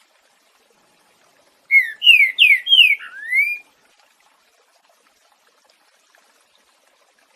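Green-winged saltator (trinca-ferro) singing one short phrase of five clear whistled notes, the first four sliding downward and the last sliding up, in the 'boiadeiro' song type.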